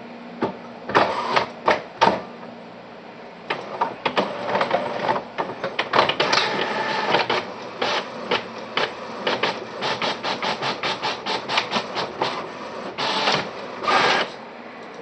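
Desktop printer printing out a page: a run of short, quick mechanical strokes and clicks, briefly pausing near the start, densest in the middle, with two longer passes near the end.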